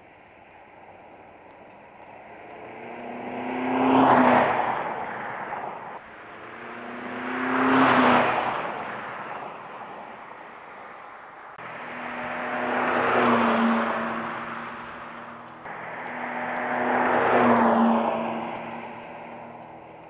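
Toyota Echo's 1.5-litre 1NZ-FE four-cylinder engine at wide-open throttle, driving past four times in a row. Each pass swells to a loud peak and fades away, the engine note dropping as the car goes by.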